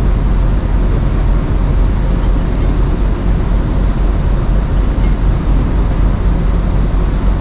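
Wind buffeting the microphone on a large ferry's open upper deck: a loud, steady rushing noise with a deep rumble underneath.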